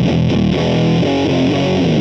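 Electric guitar played through the Does It Doom Elder God fuzz pedal (silicon Fuzz Face and Green Russian fuzz in one) into a Mesa/Boogie JP-2C amp on a clean setting. It is a thick, fuzzy riff with quickly changing notes.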